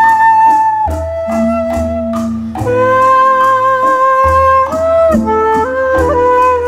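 Instrumental background music: a slow melody of long held notes over a bass line, with light, regular percussion ticks.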